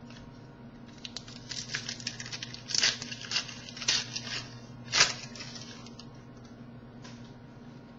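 Trading cards being handled and flipped, a quick series of light rustling clicks in the middle with a sharper snap about five seconds in, over a steady low hum.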